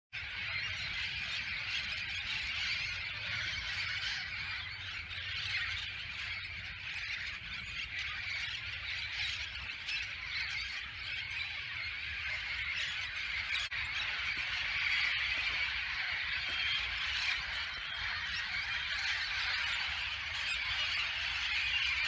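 Flock of wild parrots calling together: many overlapping calls in an unbroken chorus, a little louder in the second half.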